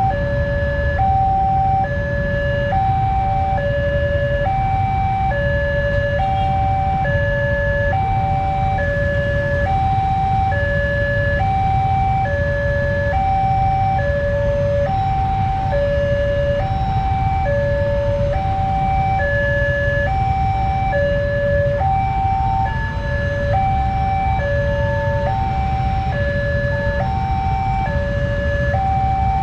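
Electronic railroad crossing alarm sounding continuously, a two-tone warble that alternates evenly between a high and a low tone about once a second while the crossing is closed for a train. Under it is a steady low rumble of idling motorcycle engines.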